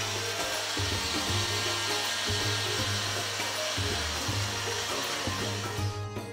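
Personal bullet-style blender motor running steadily at high speed, grinding onions, tomatoes and cumin seeds into a paste; it cuts off near the end. Background music with a beat plays underneath.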